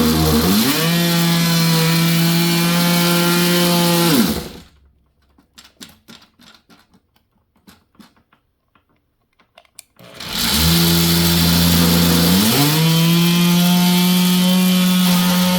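A corded oscillating multi-tool runs loud and steady as it cuts, then stops about four and a half seconds in. After a few seconds of light clicks and handling, it starts again and its pitch steps up about two seconds later.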